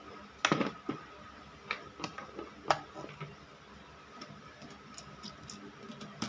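Scattered clicks and light knocks of a screwdriver and plastic electrical parts (circuit breakers, charge controller) being handled and set against a plywood board, with sharper knocks in the first three seconds and lighter ticks after.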